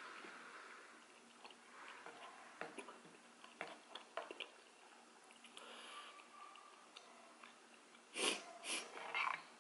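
Close-up chewing of sticky mochi rice cakes, with small wet mouth clicks, then two loud sniffs near the end, the nose running from the heat of the spicy stew.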